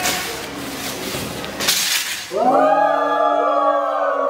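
A group of voices holding long, wavering sung notes together, starting about two seconds in, after a stretch of rustling noise.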